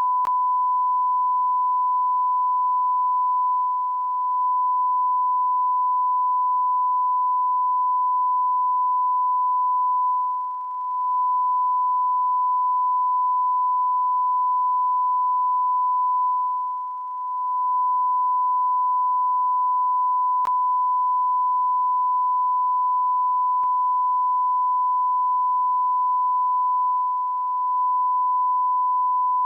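Continuous electronic beep: a single pure steady tone at the pitch of a censor bleep, held without a break. It dips briefly in loudness four times.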